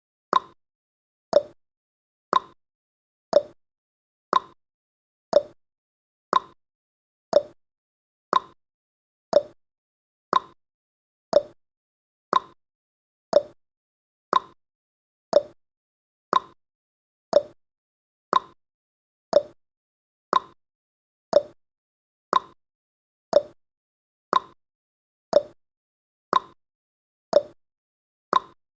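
Countdown timer's clock-tick sound effect: short, sharp ticks at a steady rate of about one per second.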